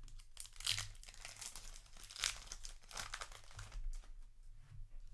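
Yu-Gi-Oh! booster pack wrapper crinkling and tearing as the pack is handled and opened, in a series of short rustles, loudest about two seconds in.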